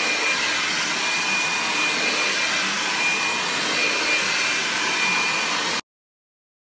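Hair dryer blowing steadily, with a faint high whine over the rush of air, then cutting off suddenly near the end.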